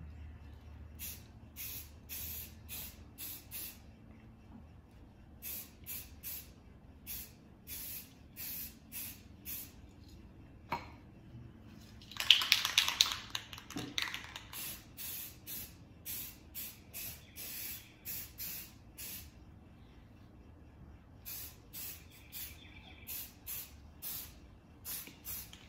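Rust-Oleum aerosol spray paint can sprayed in many short bursts, each a brief high hiss, in quick runs with pauses between. About twelve seconds in comes a louder rattle lasting about two seconds, the can being shaken with its mixing ball clattering.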